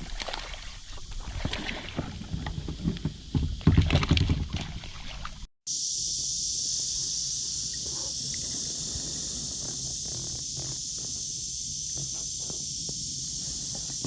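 Irregular knocks and thumps of handling in a kayak for about five seconds, then a sudden cut to a steady high-pitched hiss.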